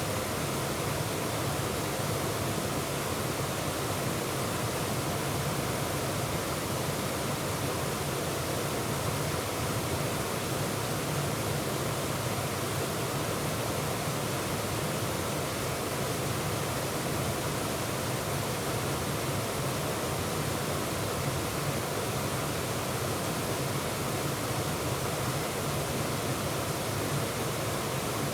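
Waterfall on a mountain stream, water pouring in a steady, even rush.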